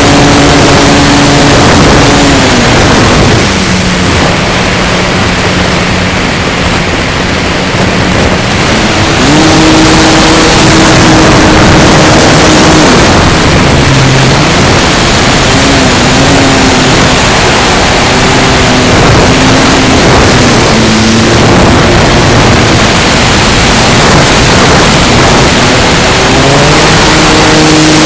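Electric motor and propeller of a Carbon-Z Cessna 150 RC plane, heard from its onboard camera under heavy wind rush. The motor's pitch drops about three seconds in, rises again around nine seconds, wavers, and climbs again near the end.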